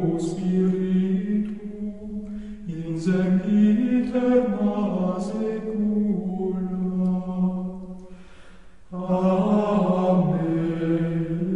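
A choir singing a Latin plainchant hymn in unison, unaccompanied, in long held notes that move stepwise. There is a short breath about 3 s in and a pause of about a second near 8 s before the next phrase begins.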